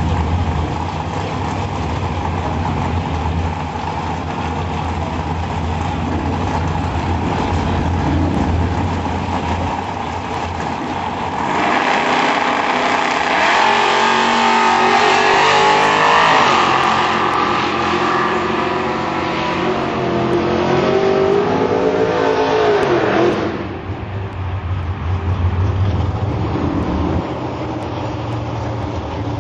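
Drag-racing cars, one of them a turbocharged 1986 Conquest TSI: engines running at the starting line, then both launching about eleven seconds in and accelerating hard down the strip. Engine pitch climbs and drops back several times as they shift through the gears, and the noise fades away near the end.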